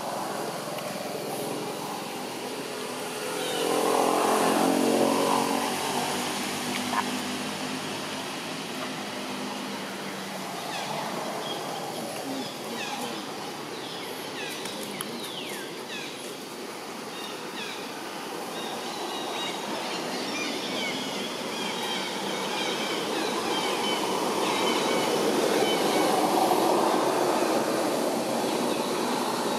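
Motor traffic passing: one vehicle swells and fades about four to six seconds in, and another builds louder near the end. Short high falling chirps come and go in the middle.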